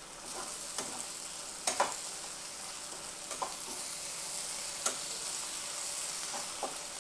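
Prawns chilly frying in a pan with a steady sizzle, while a spatula stirs and scrapes against the pan with a short clink every second or so.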